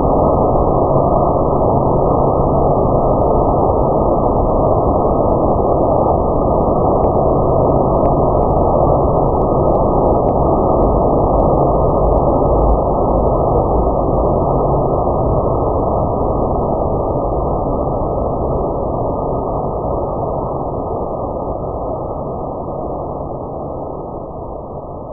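Steady mechanical rushing noise in a car wash with a low hum underneath, fading gradually over the last ten seconds or so.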